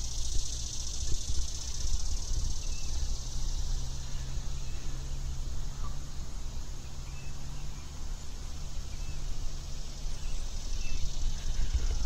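Steady high-pitched chorus of insects, with a steady low rumble underneath and a few faint chirps.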